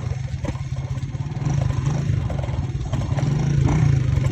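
A motor engine running steadily close by, its low hum constant, with irregular clattering over it.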